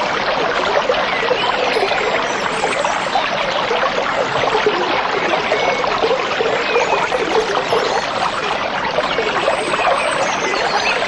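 Stream of water babbling and trickling steadily over stones.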